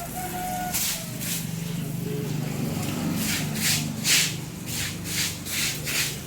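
Rhythmic scraping strokes of a tool clearing the ground, about two a second from about halfway on, over a steady low hum.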